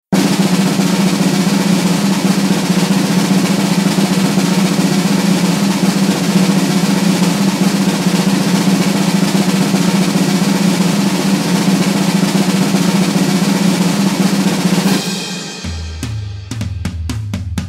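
A long, steady snare drum roll lasting about fifteen seconds, which stops abruptly. A drum kit beat then starts, with a steady low kick and regular sharp ticks.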